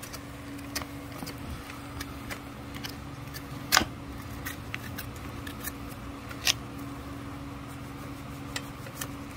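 Hoof knife paring the sole of a Clydesdale's hoof: a run of small crisp cuts and clicks, with two sharper snaps about four and six and a half seconds in.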